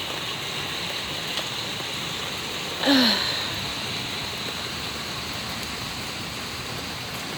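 Steady rain falling. About three seconds in, a short call drops in pitch and stands out above the rain.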